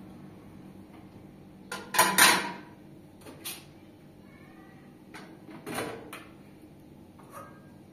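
A few sharp knocks and clatters of hard objects being handled, at irregular intervals, the loudest a quick double knock about two seconds in.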